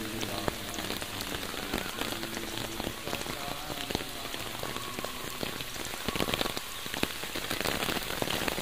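Rain falling steadily, with a patter of many individual drops.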